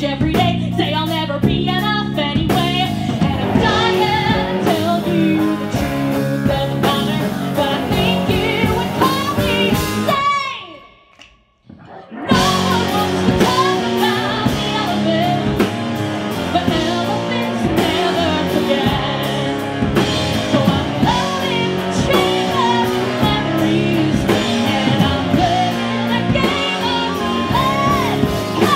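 Live band playing: a woman singing into a microphone over electric guitars, electric bass, keyboards and drums. About ten seconds in the music cuts out almost to silence for a second and a half, then the full band comes back in.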